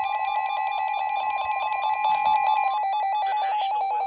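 NOAA Weather Radio emergency alert tone for a tornado watch: a loud, steady electronic alarm tone that breaks into rapid pulsing beeps about three seconds in.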